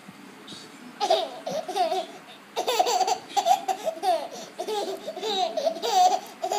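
An 8-month-old baby laughing in high-pitched bursts, a short bout about a second in, then a longer run of giggles.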